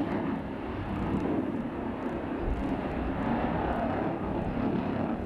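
Fighter jet in flight high overhead: a steady rushing jet-engine noise.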